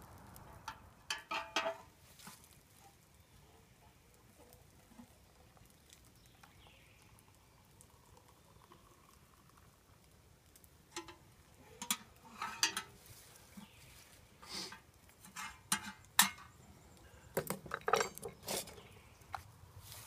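Scattered clinks and knocks of camp cookware being handled, metal and glass touching as a kettle, a French press and spoons are used. There is one short cluster about a second in, a long quiet stretch, then repeated clusters through the second half.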